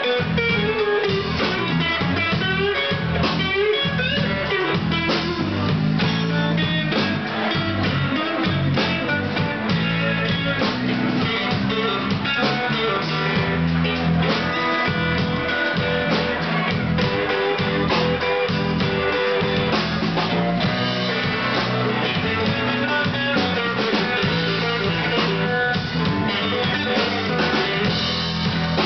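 Live blues band playing an instrumental stretch, with a Stratocaster-style electric guitar taking the lead over a drum kit, its notes bending and sliding.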